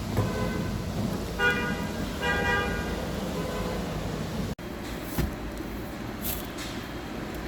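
Car horn sounding in two short blasts, with a fainter tone just before them.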